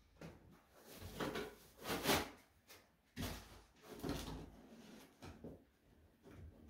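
Packaging and statue parts being handled: irregular rustling and scraping in bursts, loudest about two seconds in and again from about three to four seconds in.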